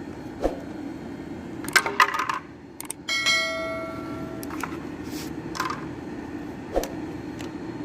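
A metal object is struck or dropped and rings out clearly for about a second and a half, about three seconds in, among a few knocks and clatters of handling, over a steady low hum.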